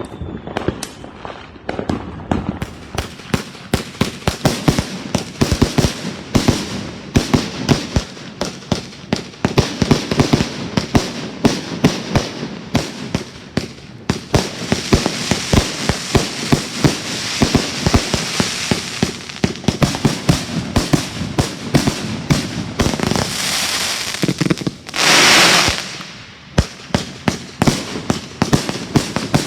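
Fireworks going off in a continuous barrage: rapid sharp bangs, several a second, thickening into dense crackling about halfway through, with a loud rushing burst about a second long near the end.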